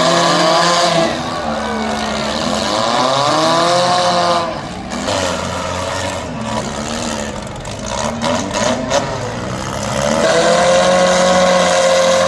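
Demolition derby car engines revving hard, the pitch rising and falling again and again. The engines ease off in the middle, then hold a high steady rev near the end.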